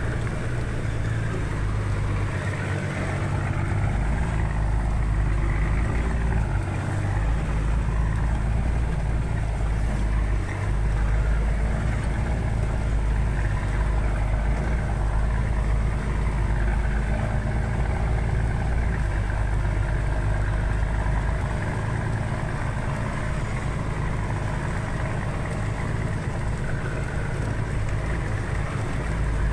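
A vehicle's engine running steadily, a continuous low drone with only brief dips in its low end.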